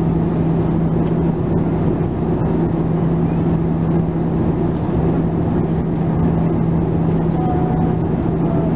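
Steady in-flight cabin drone of an Airbus A320's CFM56 turbofan engines and rushing airflow, a dense low rumble with a constant hum underneath.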